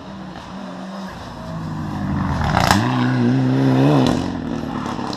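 Rally car engine at full throttle, growing louder and rising slightly in pitch as the car passes. There is a sharp crack about two and a half seconds in, and the note cuts off suddenly about a second later as the throttle is lifted.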